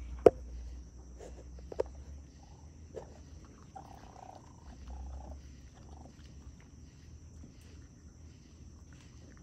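Raccoon feeding on scraps on a brick, with a few sharp clicks in the first two seconds. Two short animal calls come about four to five seconds in, over a steady high hum.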